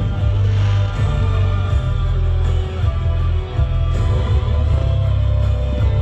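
Loud music with a heavy, steady bass.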